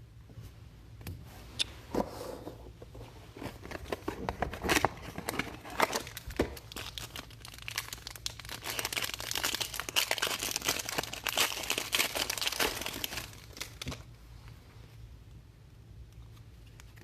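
Foil wrapper of a pack of trading cards being torn open and crinkled, with scattered clicks and rustles; the crinkling grows dense and loud for several seconds, then stops.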